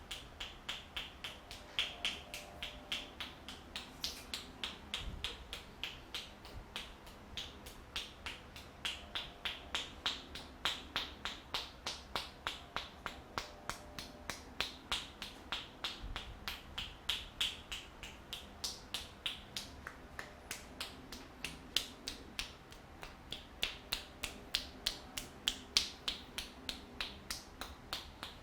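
Rhythmic hand-tapping massage: a barber's hands striking the body in a steady run of sharp, clapping slaps, about three a second, some louder than others.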